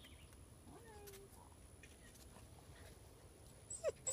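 German Shepherd puppy whimpering: a short, faint whine that rises and then holds about a second in, then a sharper, louder yelp near the end.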